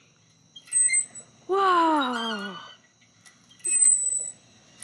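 A child's voice making one drawn-out call, about a second and a half in, that falls steadily in pitch for about a second. Near the end come a few short, breathy noisy bursts.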